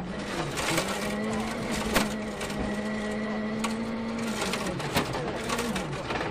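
Ford Fiesta RS WRC rally car engine at high revs. Its note holds level for a few seconds, then drops and climbs again twice as the driver lifts and shifts gears. Sharp knocks come about two seconds in and again about five seconds in.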